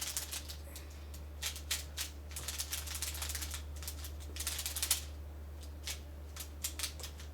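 Quick clicking and clacking of a magnetic Pyraminx (X-Man Bell) being turned by hand, in fast flurries of turns with short pauses between, thinning to scattered single clicks near the end.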